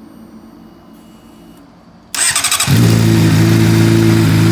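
2008 Honda CBR600RR's inline-four engine being started: about two seconds in the starter cranks briefly, then the engine catches and settles into a steady idle. With a new oil pump chain, sprocket and bearings fitted, the oil pump chain buzz is gone and it runs quiet.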